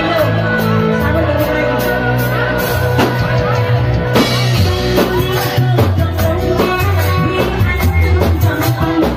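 A woman sings through a microphone over a live reog band, with drums keeping a steady beat under her voice.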